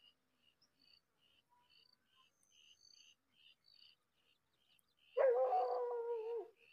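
Faint, rapid chirping, about three short notes a second, then about five seconds in a loud, drawn-out, wavering animal call that lasts over a second.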